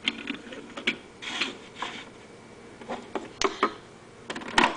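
Close handling noise: irregular rubbing and rustling with scattered small clicks and knocks, a sharp click about three and a half seconds in and a louder knock near the end.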